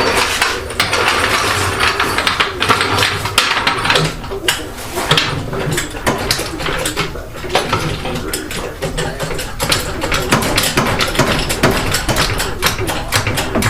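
Busy, irregular clatter of metal tools and car parts being handled, with many clicks and knocks close together.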